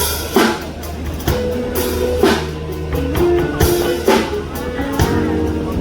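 Live band playing at a sound check: irregular drum kit hits over a steady bass line and held guitar notes.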